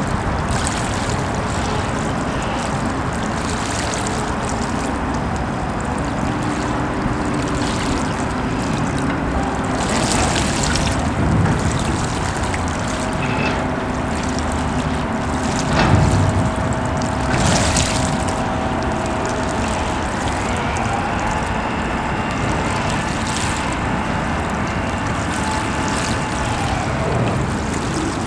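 Steady rush of moving water, with a few louder splashes and the faint drone of a distant motorboat that comes and goes.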